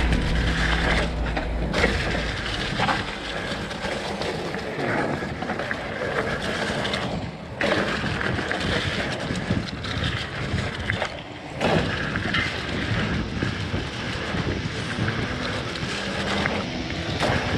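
Hardtail mountain bike riding fast down a dirt trail: a steady rush of tyre noise, bike rattle and wind on the helmet camera. The noise dips briefly twice, about halfway through.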